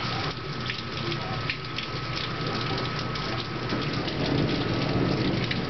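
Rain falling steadily in a thunderstorm, with a low rumble of thunder swelling in the second half.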